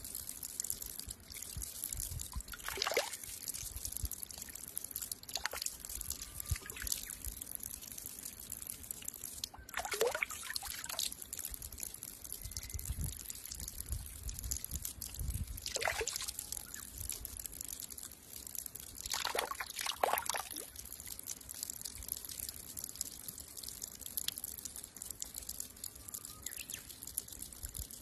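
Water pouring from the open end of a pipe onto rocks, a steady trickle with several brief louder splashes as a hand breaks the stream.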